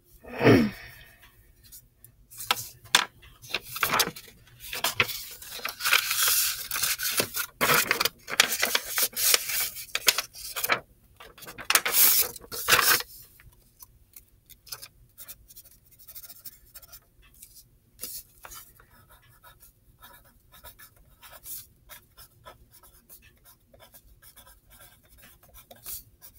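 Pencil scratching and rubbing on paper in quick, dense strokes through the first half, thinning to fainter, sparser strokes afterwards. A short squeak sliding down in pitch about half a second in is the loudest sound.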